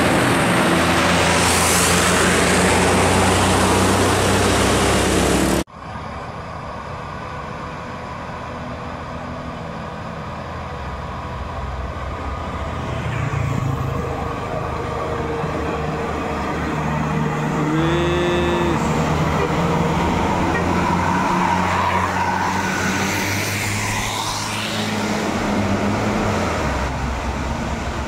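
A tourist coach passing close by, its engine and tyre noise loud, cutting off abruptly about five and a half seconds in. Then quieter roadside traffic: engines of approaching buses, cars and a motorbike build up, with a short pitched tone about two-thirds of the way through.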